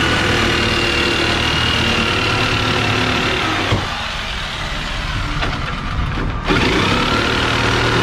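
A motor running steadily with a hum and a high whine; the sound thins out about four seconds in, with a few clicks, and comes back fully a couple of seconds later.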